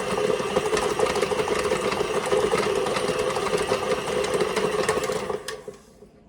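Food processor motor running steadily as it mixes a thick cookie dough, then winding down and stopping about five and a half seconds in.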